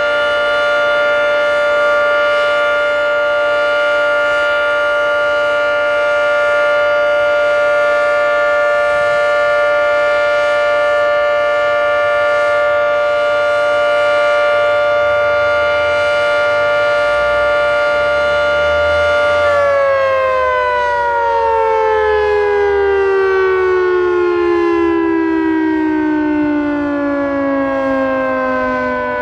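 Federal Signal 3T22 three-tone outdoor warning siren sounding its steady full-alert chord. About twenty seconds in, the chord starts falling steadily in pitch as the siren shuts off and its rotors wind down.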